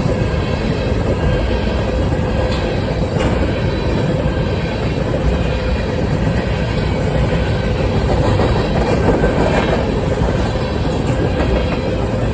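Freight cars of a grain train, covered hoppers, rolling past on steel rails: a steady rolling rumble with a faint ringing tone and a few wheel clicks over rail joints.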